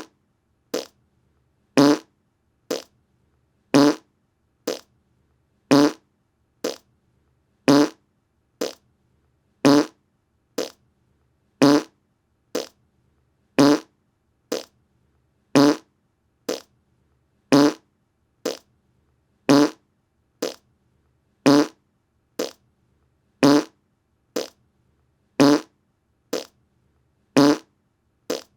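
Short fart sounds repeated about once a second, alternating louder and softer, with silence between.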